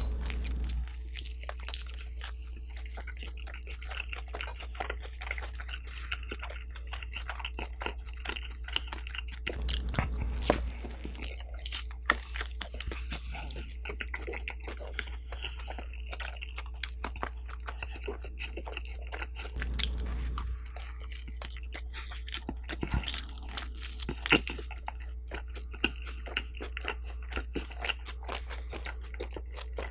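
Close-miked biting and chewing of sweet potato pizza topped with parmesan and hot sauce: a dense run of small crunchy clicks, with a few louder bites, over a low steady hum.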